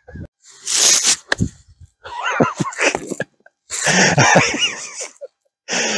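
A man's bursts of laughter and wordless exclamations, with a short sharp click just after the first burst.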